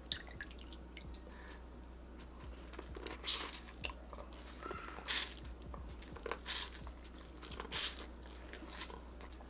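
Biting into and chewing a piece of corn on the cob coated in Cajun butter sauce, close to the microphone. Short crunching bites start about three seconds in and recur every second or so.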